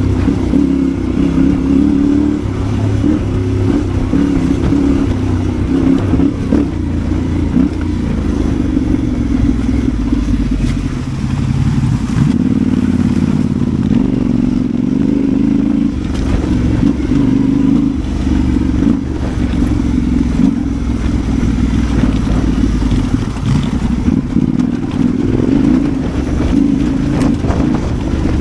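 Yamaha Ténéré 700 World Raid's parallel-twin engine running on an off-road lane, its note stepping up and down with the throttle. A few sharp knocks come through along the way.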